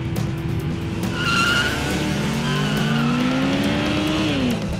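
2009 Yamaha VMAX rear tyre spinning in a burnout: a short tyre squeal about a second in, then the V4 engine revving in a long rising pitch that drops away near the end.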